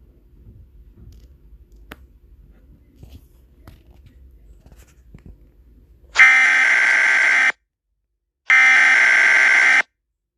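A few faint clicks over quiet room noise, then about six seconds in, two loud bursts of harsh digital data tones, each a little over a second long with about a second's gap between them: the SAME header tones that open an Emergency Alert System broadcast.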